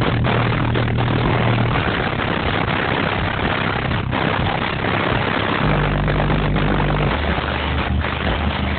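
Two 12-inch DC Audio Level 3 subwoofers in a ported box tuned to 32 Hz playing a bass-heavy song at high volume, the recording overloaded into a dense distorted rumble. A deeper bass note comes in a little past halfway.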